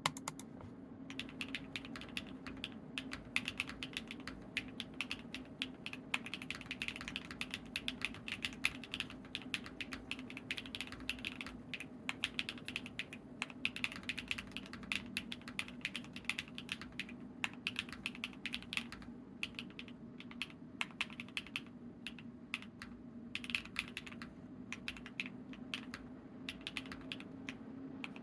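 Typing on a Monsgeek M2 mechanical keyboard with lubed CZ Studios Z1 switches, PC plate and foam dampening, and dye-sub PBT keycaps: a fast, continuous run of keystroke clacks with brief pauses. A faint steady hum lies underneath.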